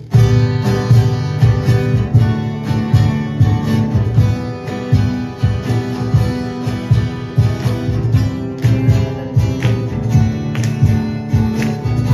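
Two acoustic guitars strumming chords while a cajon keeps a steady beat of low thumps; instrumental, with no singing.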